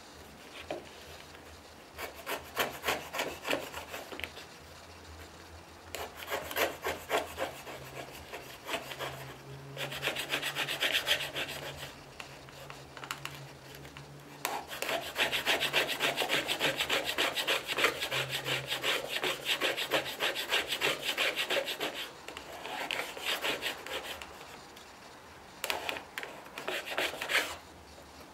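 Shop-built long-based hand router plane cutting wood, its blade scraping out a shallow recess in about six spells of rapid scraping strokes, the longest about seven seconds near the middle.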